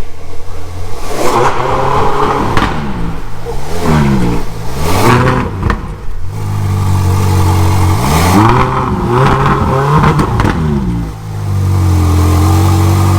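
Car engine revved several times, its pitch climbing and falling with each throttle blip, then settling into a steady idle near the end.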